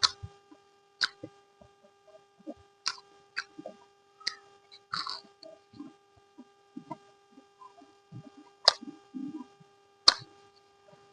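Eating sounds close to the microphone: chewing, with sharp crunchy clicks every second or two and a longer crunching burst about five seconds in, over a faint steady hum.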